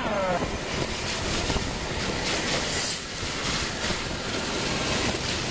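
Off-road buggy driving: a steady rush of engine and wind noise, with a brief falling note in the first half-second.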